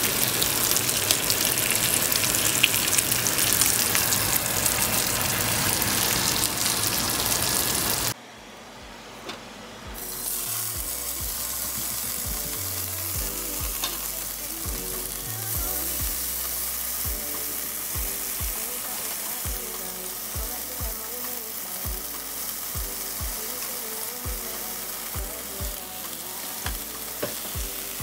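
Sausage pieces sizzling loudly in a hot nonstick skillet. The sizzle cuts off suddenly about eight seconds in and gives way to a quieter sizzle of frozen bell pepper strips frying in the same pan.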